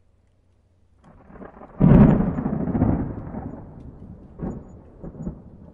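Intro sound effect: a rush of noise swells, then a deep boom about two seconds in rumbles away over a couple of seconds, followed by a few fainter swishes.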